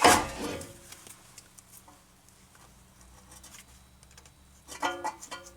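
Hand tools working on a car's disc brake caliper and pads: a loud metallic clatter at the start, then light clicks and scratching, and a short ringing scrape about five seconds in.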